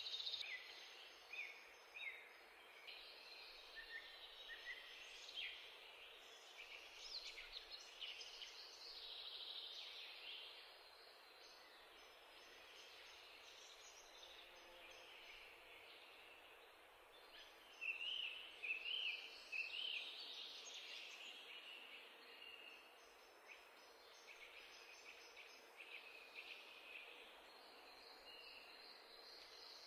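Faint bird chirps over quiet background hiss: short, high chirps come scattered throughout, with a busier run a little past the middle.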